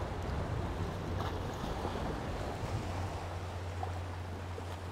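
A boat engine running slowly: a steady low hum that grows stronger about three seconds in, over lapping harbour water and wind on the microphone.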